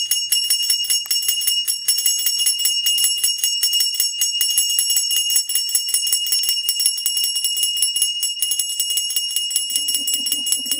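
Small brass puja hand bell (ghanti) rung rapidly and without pause during aarti, its clapper striking many times a second over a steady high ring.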